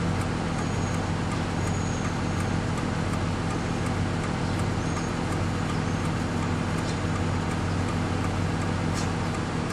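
Car engine and road noise heard from inside the cabin while driving: a steady low hum under an even rumble.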